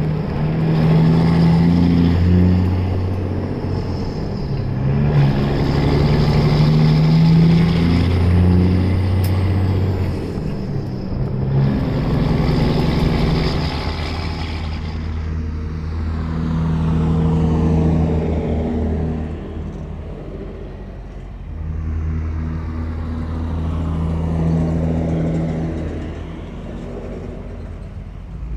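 Semi truck's diesel engine pulling a heavy load away from a stop, its note climbing and then dropping at each of several gear changes.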